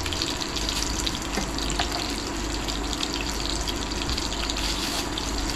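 Shallow oil sizzling and crackling steadily in a frying pan around breadcrumbed fish fillets. A low hum stops just after the start.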